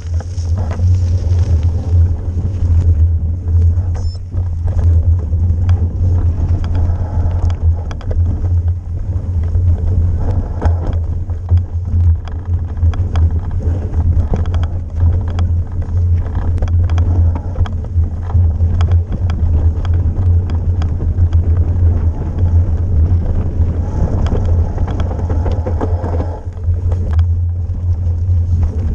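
Wind buffeting the microphone of a mountain biker's head- or chest-mounted action camera during a fast ride, a steady low rumble, over mountain-bike tyres rolling on gravel and dirt. Frequent small clicks and knocks run through it as the bike rattles over bumps.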